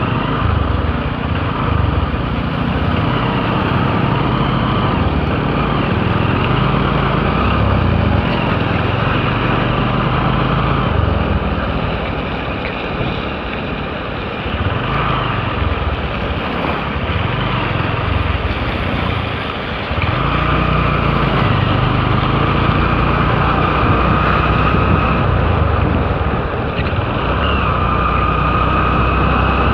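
Motorcycle engine running while riding, its pitch rising and falling again and again as it speeds up and eases off, over a steady rush of wind on the microphone.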